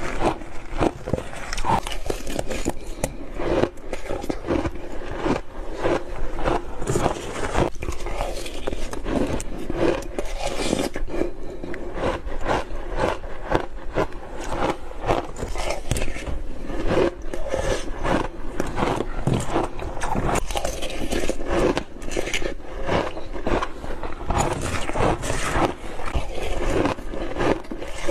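Crunchy ice coated in matcha and milk powder being bitten close to the microphone: a continuous run of crackling, crunching bites, several a second.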